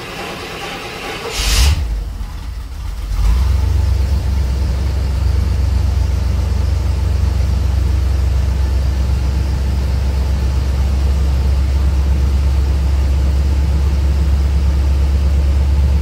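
Exhaust of a 1986 GMC Sierra Classic's carbureted engine on a cold start: the engine turns over, catches with a sharp burst about a second and a half in, stumbles briefly, then settles about three seconds in to a steady idle with a strong low exhaust note.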